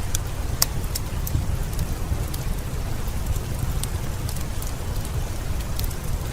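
Heavy rain falling steadily, with a low rumble, mixed with irregular sharp crackles and pops from a wood fire.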